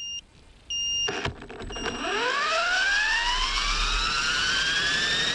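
Align 450-class electric RC helicopter: two short beeps, then its brushless motor and main rotor spool up with a whine that rises steadily in pitch, over a low rumble.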